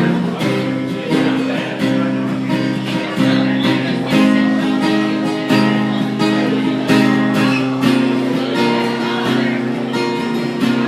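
Acoustic guitar strumming chords in a steady rhythm, an instrumental break between verses of a folk-style song.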